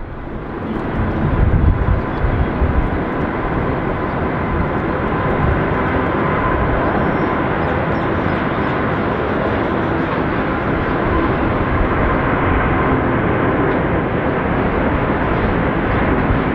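Four Rolls-Royce Trent 900 turbofans of a Qantas Airbus A380 running at high power as the jet rolls down the runway on its takeoff run. The noise swells over the first couple of seconds, then holds as a steady, even rumble.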